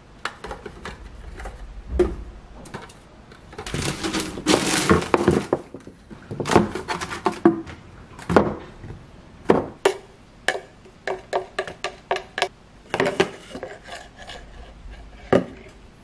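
Plastic food-storage containers being handled and set down on a wooden counter: scattered knocks and clicks. About four seconds in, newspaper rustles for a second or so as it is tucked into a container as a lining.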